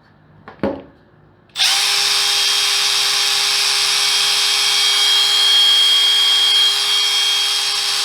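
Cordless right-angle impact wrench running flat out with no load, a steady high whine over a low hum and no impacting. It starts about a second and a half in, after a couple of short clicks.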